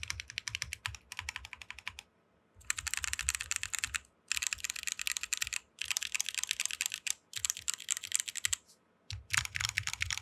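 Mechanical keyboard with Kailh Speed Copper switches lubed with Krytox 205g0, in a 60% aluminium case with DSA PBT keycaps, being typed on fast in runs of rapid keystrokes broken by short pauses.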